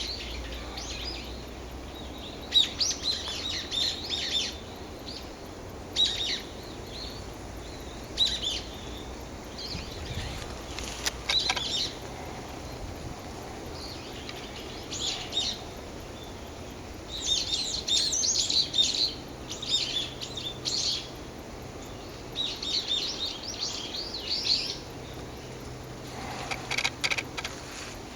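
Small birds calling: short bursts of high chirps and twitters, about a dozen clusters spread irregularly, some single notes and some rapid runs lasting a second or two.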